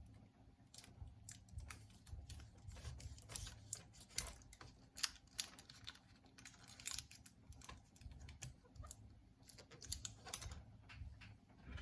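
Irregular light clicks and taps, some louder than others, over a steady low hum.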